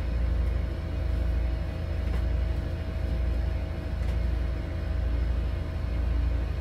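Steady low mechanical rumble with a constant hum over it, swelling and fading slowly every second or so.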